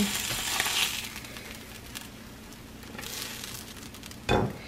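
Food frying on an electric griddle: a sizzling hiss during the first second that then dies down to a faint background. A single short thump comes near the end.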